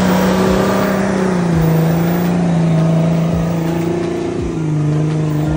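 Modified Jeep Wrangler TJ's engine running steadily under load as it drives through snow, its note easing down in pitch in a couple of small steps.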